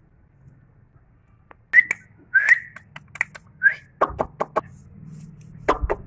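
Indian ringneck parakeets giving about four short whistled notes, starting a little under two seconds in, followed by a run of sharp clicks.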